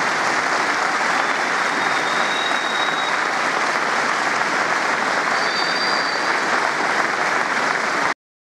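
Large audience applauding steadily, with two faint high tones heard in it; the sound stops abruptly near the end.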